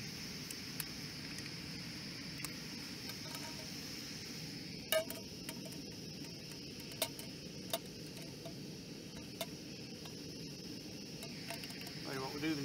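Camping gas stove burner running steadily with an even hiss, with a few sharp clicks and taps of pans and utensils being handled.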